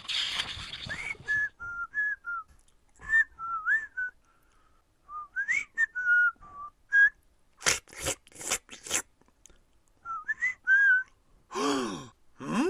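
A man whistling a short, wandering tune in brief notes. A book page is turned with a papery rustle at the start, and a few sharp rustling clicks come about two-thirds of the way through.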